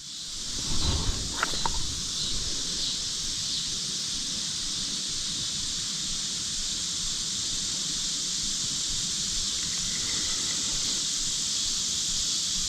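Steady, high-pitched chorus of evening insects such as crickets, with a few soft knocks in the first two seconds.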